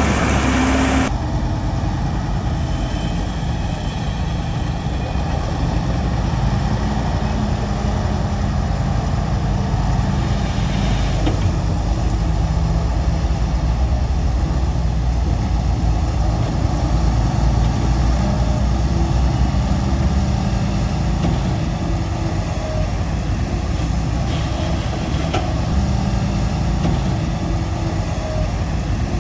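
Diesel engine of heavy earthmoving machinery running steadily with a deep, low drone.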